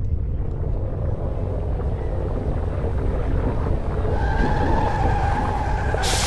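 Low rumbling drone of a film soundtrack, slowly building, with a faint sustained tone entering about four seconds in; a sudden loud hiss breaks in at the very end.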